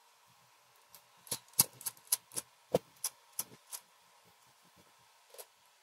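Quick, sharp clicks and taps of a hair trimmer's parts being handled during disassembly: about ten in a row over two and a half seconds, then one more near the end.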